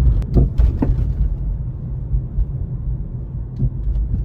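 BMW driving with a steady low rumble and a few sharp knocks in the first second, two fainter ones near the end: the abnormal steering noise, from a steering rack that water had got into past its dust boot.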